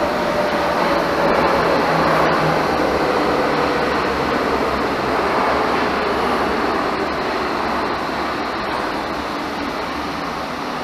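Munich U-Bahn train pulling into an underground station and braking: a steady rumble of wheels on rails, with a motor whine that falls slowly in pitch as the train slows.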